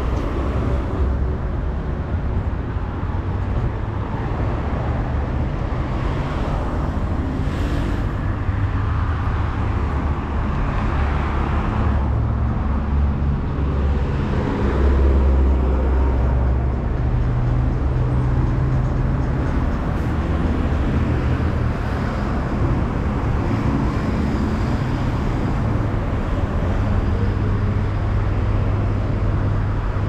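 City street traffic: cars driving past on the road beside the sidewalk, a steady engine and tyre rumble, with one vehicle passing louder about halfway through.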